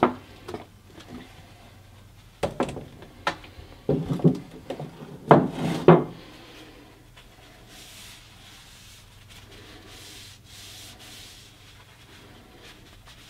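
A metal can of boiled linseed oil and a paper towel being handled to wet the towel with oil: several knocks and crinkling scrapes in the first six seconds, the loudest around four to six seconds in. Then faint, soft rubbing of the paper towel.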